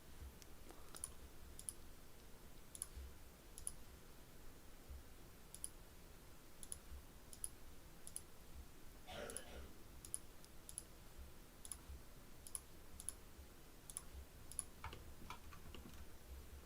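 Faint computer mouse clicks, irregular, roughly one or two a second, as objects are selected and settings changed in software.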